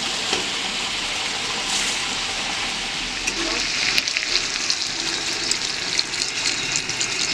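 Water poured from a bottle into a pan of frying chicken and potato curry, splashing and sizzling in the hot oil and masala, with more crackling from about halfway.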